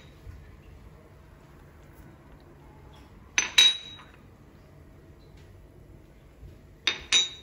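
A metal teaspoon clinking against a container as spices are spooned into a sauce: two quick double clinks with a short ring, about three and a half seconds apart.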